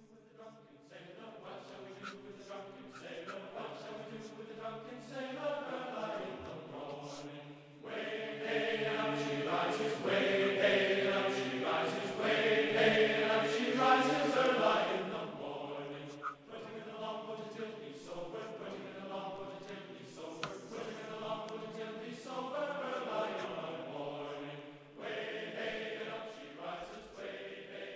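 Slow background music of held, choir-like voices, the chords shifting every few seconds and swelling louder in the middle.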